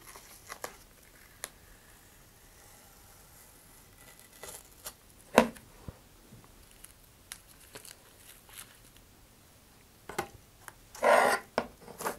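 Masking tape being peeled off a model rocket's body tube and fins beside wet epoxy fin fillets: scattered light crinkles and ticks, one sharp click about halfway, and a short tearing rip near the end.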